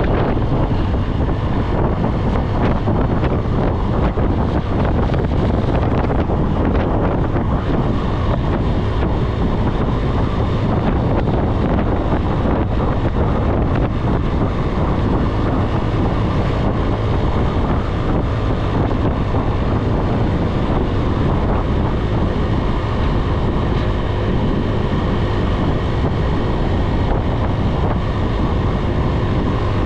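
Wind rushing steadily over an action camera's microphone while riding a motorbike, with the bike's engine and road noise running underneath.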